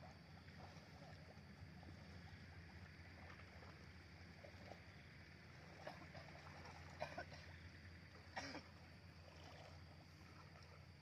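Faint sloshing and splashing of shallow pond water as people wade and scoop with hand nets, over a steady low rumble. A few brief, sharper splashes stand out about six, seven and eight and a half seconds in.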